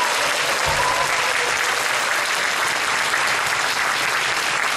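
Audience applauding steadily in a concert hall after a song ends.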